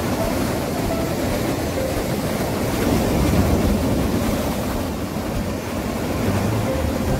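Steady rush of sea surf and wind, with no sudden events.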